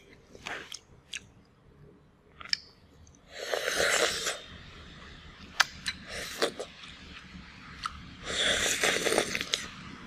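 Close-miked eating: a person biting and chewing crunchy food, with two louder stretches of crunching, one a few seconds in and one near the end, and small wet mouth clicks between them.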